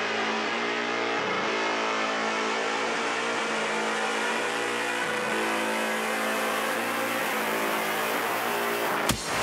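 A live band's held, distorted drone with many stacked pitches, its upper range slowly brightening as it builds. Near the end, drums and the full band crash in.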